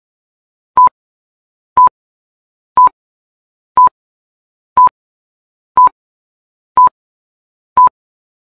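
Countdown timer beeping: short electronic beeps at one steady pitch, once a second, eight in all, with silence between. Each beep ticks off one second of the countdown.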